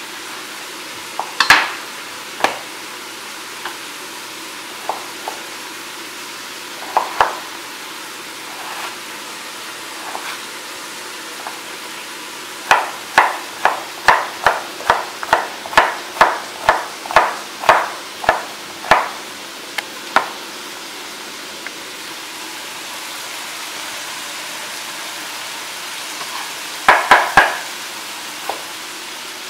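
Chef's knife chopping a peeled potato on a wooden cutting board: scattered knocks at first, then a run of quick, even chops about two or three a second in the middle, and a short burst of knocks near the end. A steady hiss runs underneath.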